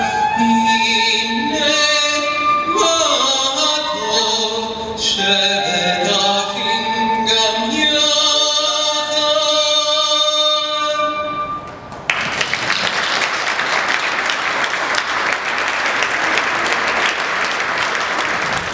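A man singing a psalm from the Jewish Shabbat tradition solo, a slow melody of long held notes, which stops about twelve seconds in. Audience applause follows and runs on to the end.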